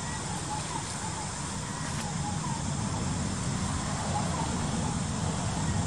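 Steady outdoor background noise: a continuous low rumble with faint short chirps recurring now and then.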